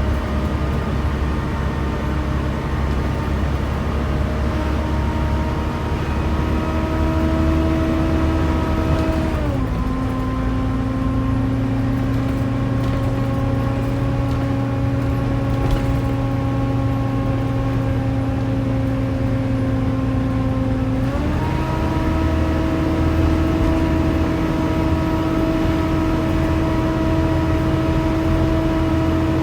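Volvo B7TL double-decker bus's 7-litre D7C diesel running under way with its loud whining 'hoover' note over road rumble. The whine glides down in pitch about a third of the way through, holds lower, then glides back up about two-thirds through.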